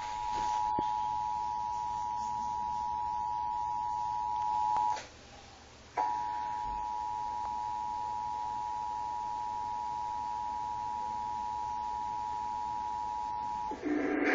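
Emergency Alert System attention signal: a steady two-tone alert tone (853 and 960 Hz played together). It breaks off for about a second partway through, then resumes and stops just before the spoken test announcement.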